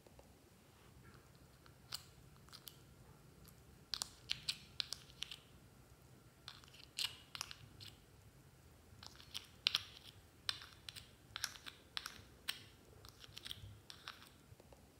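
Metal spatula scraping and clicking inside a small plastic jar as soft clay is dug out and dropped onto slime: irregular sharp clicks and short scrapes, bunched in clusters.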